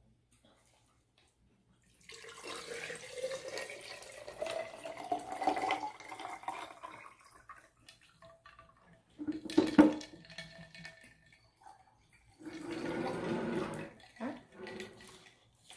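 Water being poured into a cup or glass, the pitch rising steadily as it fills, followed about ten seconds in by a sharp knock of something set down on the table.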